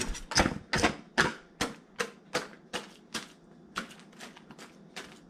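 Batter being stirred in a mixing bowl, the stirring utensil clicking against the side of the bowl about two or three times a second.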